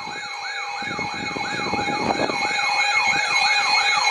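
Electronic siren in a fast yelp, its pitch sweeping up and down about three times a second over a steady high tone, growing gradually louder.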